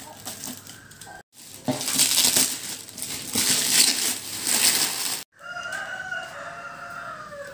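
Clear plastic wrapping crinkling and rustling as it is cut open with a box cutter and pulled off a cardboard box. Near the end a quieter drawn-out pitched call follows.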